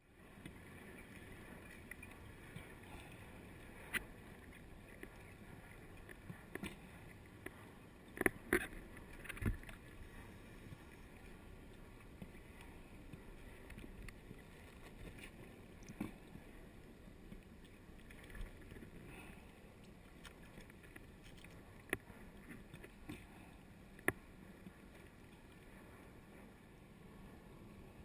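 Faint, steady underwater noise picked up through a dive camera's housing, with scattered sharp clicks and knocks, several of them close together about eight to ten seconds in.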